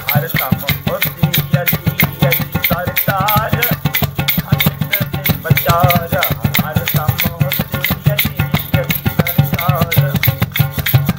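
A man singing a folk song in a wavering, ornamented voice over fast, dense rattling hand percussion.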